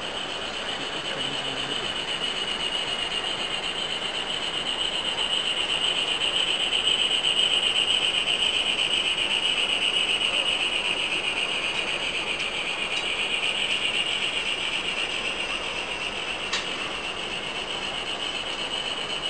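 Model tram locomotive running along the layout track with a steady high whine that swells toward the middle and fades again. A single sharp click comes near the end.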